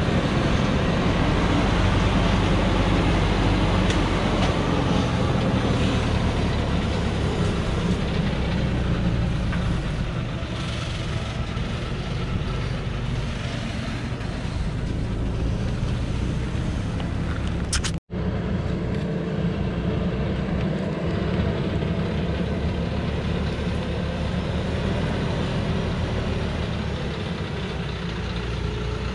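Heavily loaded light truck's engine running in a steady low drone as it descends slowly on a steep dirt forest track, a little quieter after about ten seconds. The sound breaks off for an instant about two-thirds of the way through.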